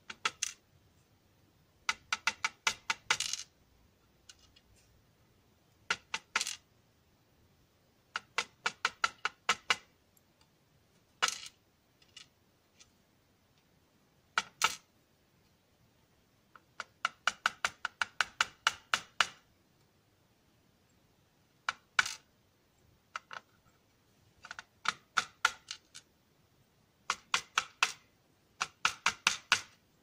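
Small sharp metallic clicks in quick runs of about seven to ten, a few seconds apart, with some single clicks between, as a Yale Superior lock core is worked to get its key pins out.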